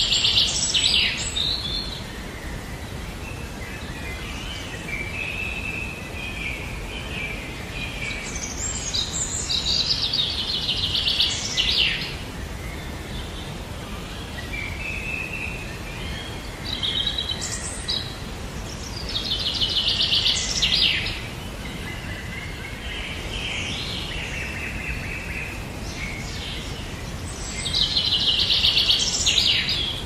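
Songbirds singing: loud phrases of rapid, trilled notes recur every several seconds, with softer calls in between, over a steady low background noise.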